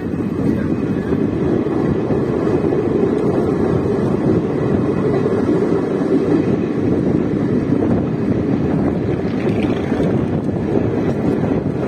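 Steady rushing wind on the microphone over the running noise of a moving express train, its ICF passenger coach underway.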